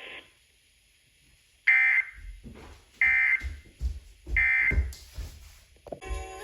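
Emergency Alert System end-of-message data bursts: three short bursts of digital tones about a second and a half apart, marking the end of the flash flood warning. Near the end a different set of steady tones begins.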